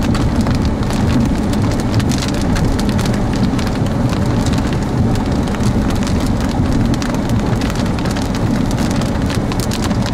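Rain hitting the windshield and roof of a moving car, heard from inside the cabin: many small drop ticks over a steady low rumble of tyres on wet pavement.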